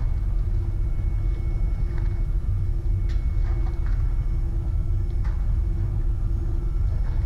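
A steady low rumble with a faint steady hum above it, broken by a few faint short clicks.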